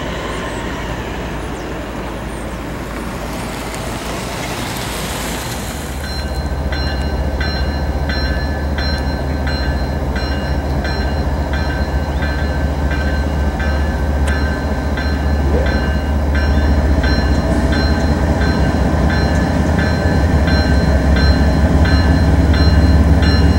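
Freight train passing: wheels rolling on the rail with regular clicks and a steady high-pitched ringing, under a diesel locomotive engine drone that comes in about six seconds in and grows louder toward the end.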